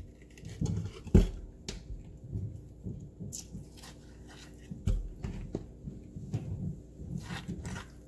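Metal spoon scooping and scraping ripe avocado flesh from its skin, with soft knocks and thuds as the flesh drops into a plastic blender cup; the sharpest knock comes about a second in and another near five seconds.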